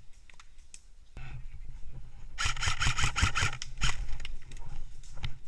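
Airsoft gun firing a rapid string of shots, about seven sharp clicks a second for a second and a half midway, over low wind rumble on the microphone.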